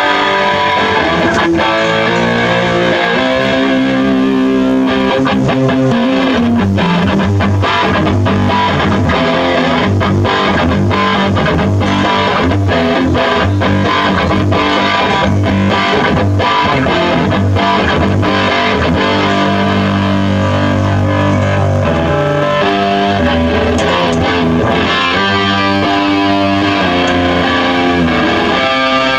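Live rock band playing, amplified through PA speakers: electric guitar over bass and a drum kit keeping a steady beat.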